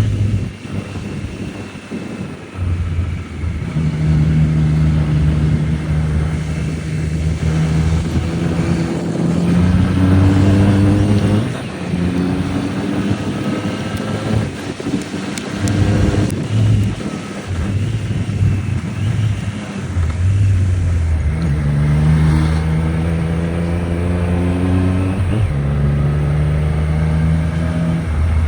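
Triumph Street Triple RS's 765 cc inline three-cylinder engine pulling hard through the gears. Its pitch climbs in steps and drops sharply at each shift, in several runs with easing off between them.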